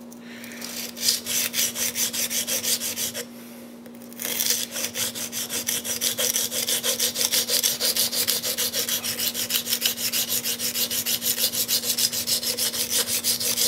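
A CPM-M4 steel knife blade is stroked quickly back and forth across a coarse 125-micron diamond sharpening plate, a rhythmic rasping scrape of several strokes a second. The strokes pause for about a second a little after three seconds in. The plate is grinding in a new bevel.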